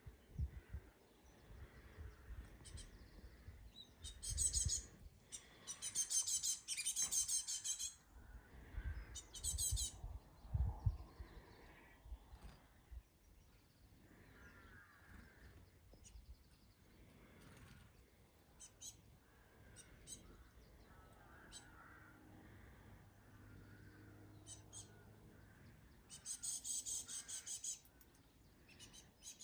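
Fledgling birds giving rapid, high-pitched begging calls in several bursts, the longest a few seconds in and another near the end, with some low rumble on the microphone.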